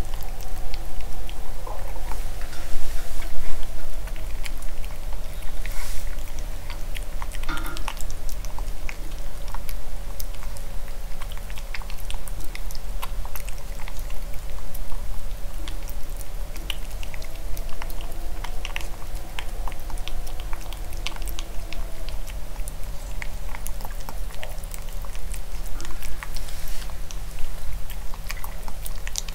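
Maltipoo puppy eating from a clear bowl: steady, quick chewing and licking, with many small clicks throughout.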